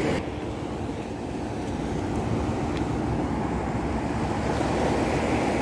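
Steady rushing of sea surf on a rocky shore, with wind buffeting the microphone.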